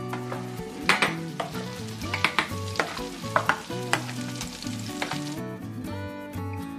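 Flour-dusted Baltic herring fillets sizzling as they fry in a pan, with sharp clicks and knocks of a utensil against a steel pot of mashed potatoes. The sizzle cuts off about five seconds in, leaving soft background music.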